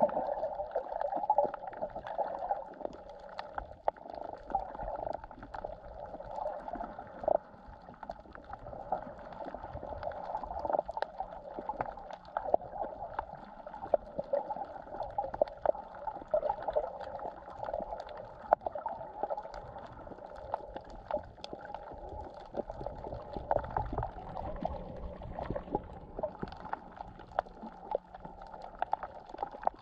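Underwater sea ambience heard by a submerged camera: a muffled, steady water rush dotted with frequent sharp clicks and crackles.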